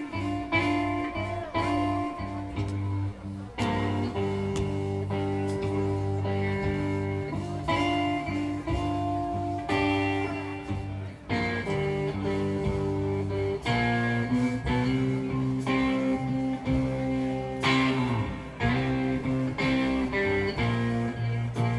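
Background music: a guitar-led band song, with sustained chords that change every few seconds over a steady beat.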